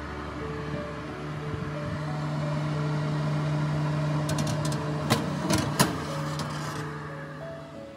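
Fan oven running with a steady whirring hum that swells in the middle, over soft background music. A few sharp metallic clicks come about five seconds in.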